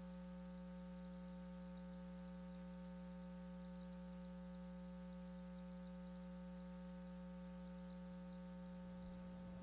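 Steady electrical hum: one strong low tone with several fainter higher tones and a faint hiss, unchanging, from an open audio line that carries no voice.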